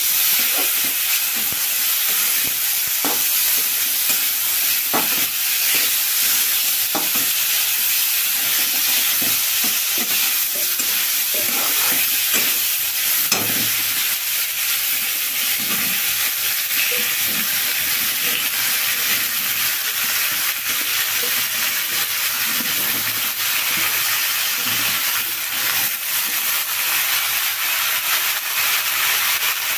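Chickpeas frying in hot oil in a metal kadhai, a steady sizzle, with a metal spatula scraping and knocking against the pan now and then as they are stirred.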